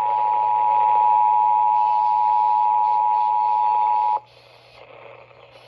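Emergency Alert System two-tone attention signal (853 Hz and 960 Hz sounded together), a loud steady tone that cuts off suddenly about four seconds in, leaving faint radio hiss and hum. The tone marks the start of an emergency alert broadcast.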